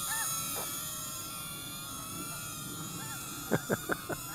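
Eachine E016H mini quadcopter's small motors and propellers whining in flight as it yaws against the wind: several steady high tones that waver slightly. A few sharp clicks come in quick succession near the end.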